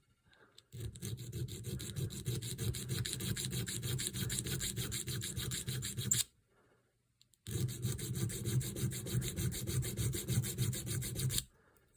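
Small diamond file worked in rapid back-and-forth strokes across a small steel screw head, tidying up its burred slot by hand. Two long runs of filing with a pause of about a second between them.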